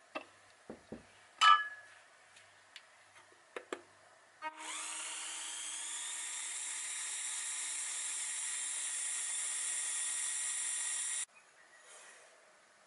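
A few sharp glass clinks, the loudest about a second and a half in, then an electric hand mixer starts with a rising whine and whisks egg whites with sugar in a glass bowl for about seven seconds before cutting off suddenly.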